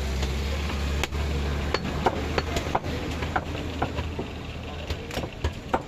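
Meat cleaver chopping through goat ribs on a wooden chopping block: a run of sharp, irregular knocks, coming faster near the end, over a low steady hum.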